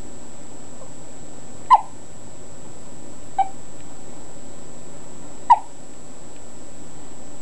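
A baby hiccuping three times, about two seconds apart, the middle hiccup softer than the other two, over a steady background hiss with a faint high whine.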